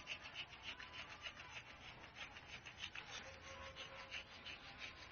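A hand tool scraping wood in quick, even, repeated strokes, about four or five a second.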